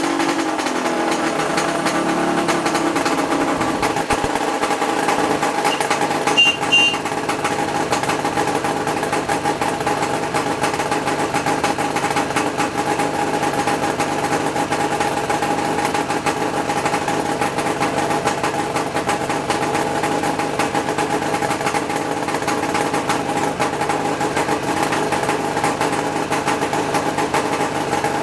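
A 1975 Suzuki GT550's air-cooled three-cylinder two-stroke engine, freshly restored, settling down from higher revs over the first couple of seconds and then idling steadily. There is one brief, sharp, louder sound about six and a half seconds in.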